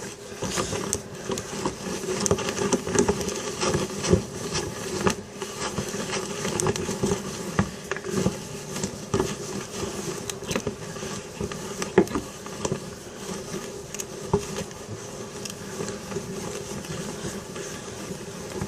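Hand-cranked drill turning steadily, its gears whirring with many small clicks as the bit bores into wood.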